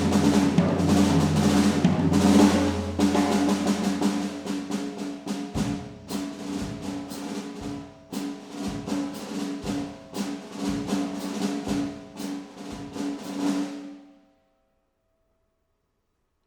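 Drum kit played loudly: a dense roll on drums and cymbals over a low rumble, thinning after about three seconds into scattered hits with bass-drum strokes about once a second. It cuts off about two seconds before the end.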